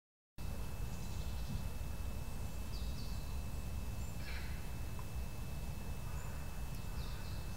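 Woodland ambience that starts suddenly about half a second in: a steady low rumble with a few short, high bird calls scattered through it, and a thin steady high tone underneath.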